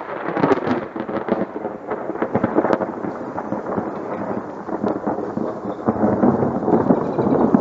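Thunder: a loud crackling peal that settles into a long rolling rumble, swelling again near the end.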